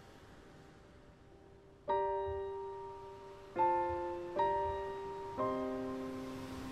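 Slow, gentle piano background music: a chord fading out, then four chords struck a second or so apart, each left to ring.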